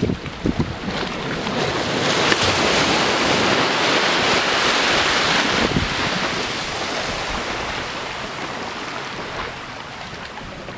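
Small waves breaking on a sandy beach and washing up the shore. The surf hiss swells about two seconds in, peaks, then slowly fades as the water draws back.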